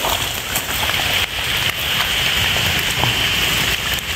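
Rain falling on forest leaves: a steady hiss with a few soft ticks.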